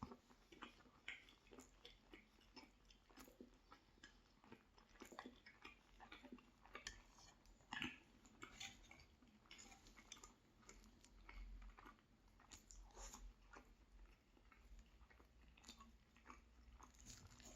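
Soft, close-miked chewing of a mouthful of pork and beef tourtière meat pie and its pastry crust: irregular small wet mouth clicks and light crunches.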